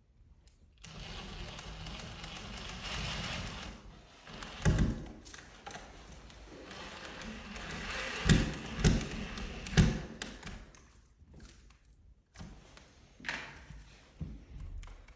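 Door hardware being fitted: several heavy knocks and lighter taps, with two stretches of scraping, rustling noise between them.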